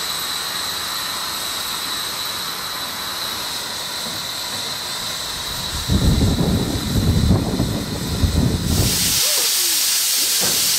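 Steady steam hissing from the 1877 Avonside 2-4-0 side-tank locomotive L 509, with a thin high tone running through it. About six seconds in, a loud, irregular low rumbling joins for some three seconds, and near the end the hiss turns brighter and louder.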